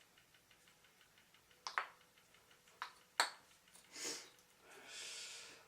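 Light handling noise from a wooden kendama being turned over in the hands: a few sharp little clicks and taps about two and three seconds in, then a soft hiss near the end.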